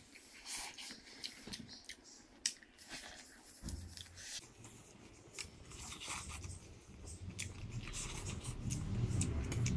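Close-up eating sounds: chewing and smacking with many small sharp clicks as food is eaten by hand. About three and a half seconds in, a low background sound comes in and slowly grows louder toward the end.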